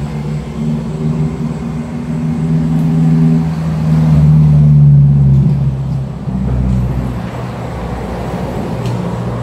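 An engine running close by with a steady low hum, swelling louder about four to five seconds in and then easing off.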